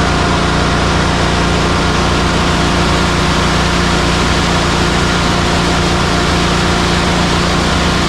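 Concrete mixer truck's diesel engine running steadily at a constant speed.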